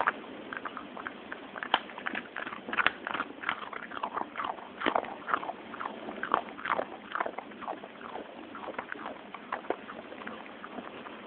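A dog chewing small treats close to the microphone: irregular wet crunches and clicks of teeth and jaw, several a second, thickest in the first half and thinning out toward the end.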